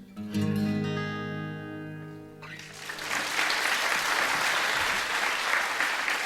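Live recording of a folk song ending: a final acoustic guitar chord rings out and fades, then audience applause starts about two and a half seconds in and carries on steadily.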